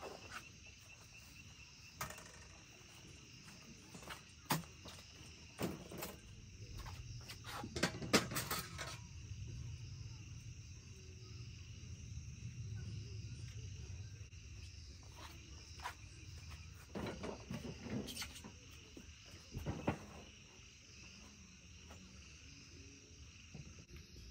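Insects chirping steadily in the grass, with scattered knocks and clatters of camping gear being handled and set down.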